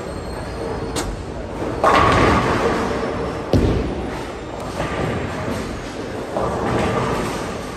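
Bowling alley noise: several heavy thuds and knocks with two louder, longer crashes about two seconds in and near the end, over a steady rumble, typical of bowling balls landing and rolling down the lanes and striking pins.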